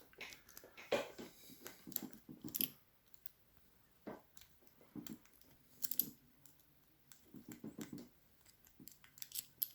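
Faint, irregular metallic clicks and scrapes of a bent paperclip and a strip of wiper-blade insert working in the keyway of a Master Lock 140 padlock as it is picked.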